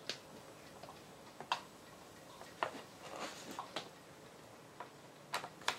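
Faint, scattered clicks and light knocks, about six of them, the loudest two near the end: a power plug and adapter being handled and pushed firmly into a socket after a too-light first push.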